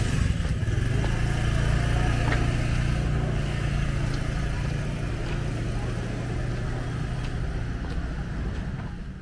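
A motor vehicle's engine running steadily close by, a low even hum over the general din of market ambience, fading out near the end.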